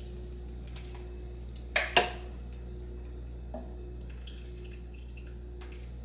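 A utensil clinks twice in quick succession against the slow cooker's crock while fork-tender slow-cooked venison shank is pulled apart, with a softer knock later. A steady low hum runs underneath.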